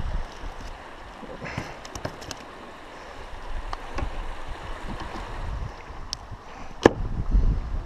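River water lapping around a plastic kayak, with wind buffeting the microphone in low rumbles at the start and near the end. Scattered small clicks come from fishing gear and a landing net being handled, and one sharp knock sounds about seven seconds in.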